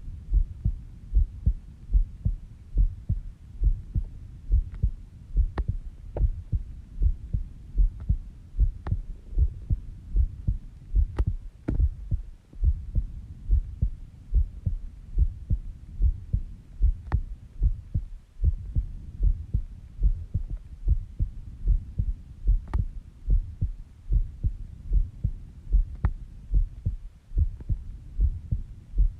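A sleeping person's heartbeat: a steady, even rhythm of low thumps.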